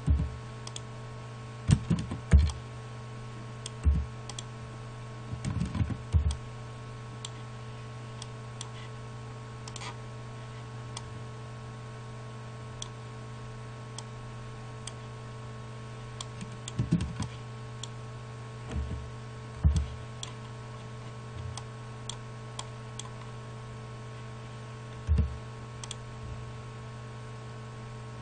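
Computer mouse clicks and keyboard taps, sharp and scattered, with a few clusters of louder knocks, over a steady electrical hum.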